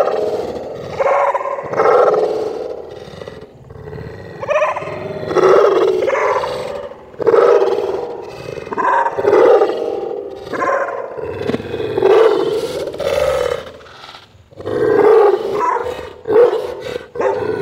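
Large black guard dog growling and barking in deep, drawn-out bursts, one after another, as an aggressive warning at a man standing at the gate.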